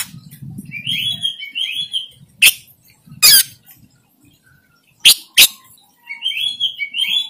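Oriental magpie-robin (kacer) giving two short runs of bright, high chirping song notes, about a second in and again near the end. Between them come four loud, sharp bursts, which are the loudest sounds.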